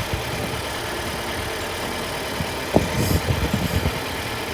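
2021 Volkswagen Tiguan's turbocharged four-cylinder engine idling steadily, with a sharp click a little past halfway and brief light handling knocks after it.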